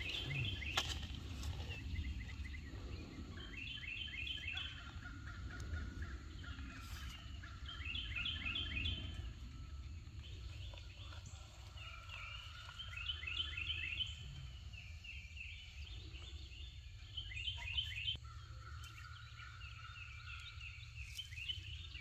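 Birds singing in the background: short bursts of rapid repeated high notes come back every four or five seconds, with lower drawn-out notes between them.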